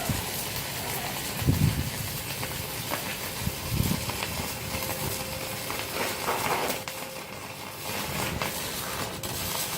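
Stick (MMA) welding arc from an IGBT inverter welder burning steadily with a continuous crackling hiss, over a faint steady whine.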